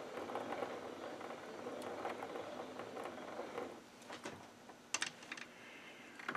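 Metal lathe's gear train and leadscrew turning over slowly as the spindle is rotated by hand with a spindle handle: a faint run of gear rattle and small clicks for about three and a half seconds, then a few separate clicks. The carriage is being fed along to check the 6 TPI thread pitch against a dial indicator.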